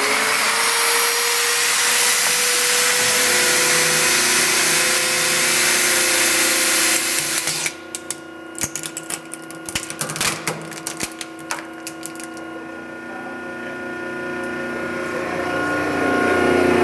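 Power Fist 5-inch angle grinder running at full speed with a loud whine that drops in pitch about three seconds in. About halfway through the whine cuts back and the hydraulic press crushes the running grinder: a run of sharp cracks and crunches from its gear head and plastic housing, then a lower hum that slowly gets louder.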